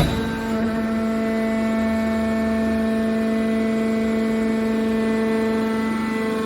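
Hydraulic waste metal baler's power unit running with a steady whine at one fixed pitch, rich in overtones. A short knock comes right at the start.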